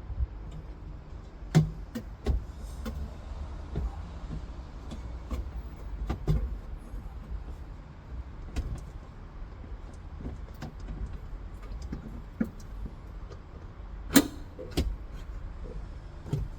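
Scattered clicks and knocks of small parts being handled and fitted together while a car radio is reassembled, the loudest about a second and a half in and again near the end, over a steady low rumble.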